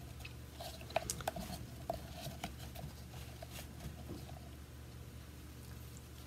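Solid coconut oil being scooped out of its tub and dropped into a glass measuring cup: faint scraping, squishing and small clicks, most of them in the first half, over a low steady hum.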